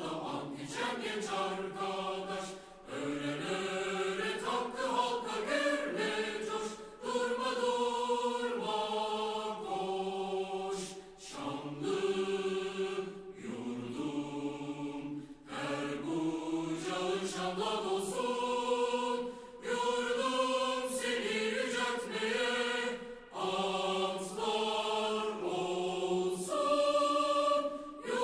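Choral music: voices singing slow held chords that move to a new chord every second or two, with short breaks between phrases.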